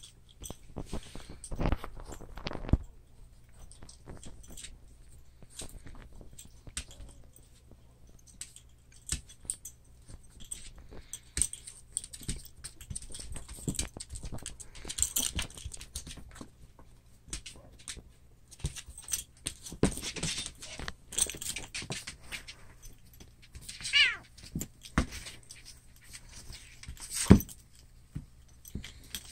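A black cat and a dog tussling on a tile floor: irregular scuffling, with paws and claws scrabbling and clicking on the tiles. A brief high wavering cry comes about three-quarters of the way through, and a sharp knock, the loudest sound, comes near the end.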